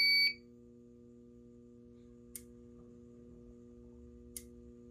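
A steady high-pitched fire alarm tone cuts off suddenly about a third of a second in as the alarm system is reset. A faint steady hum follows, with two short sharp ticks about two seconds apart.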